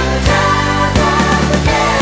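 Background music: a song with a steady drum beat and held bass notes.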